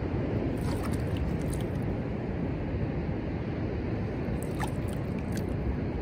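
Steady low rumble of beach wind on the microphone mixed with distant ocean surf, with two brief clusters of faint high ticks.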